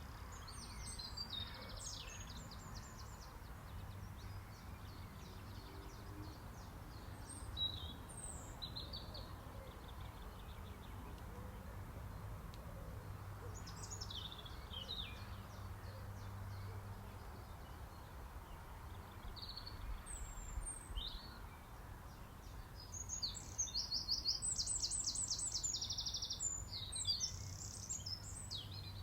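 Small songbirds singing and chirping: short high calls scattered throughout, and a louder burst of fast trills near the end, over a steady low background hum.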